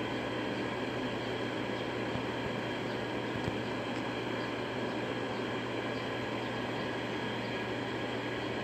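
Steady background hum and hiss, level and unchanging, with one faint tick about three and a half seconds in.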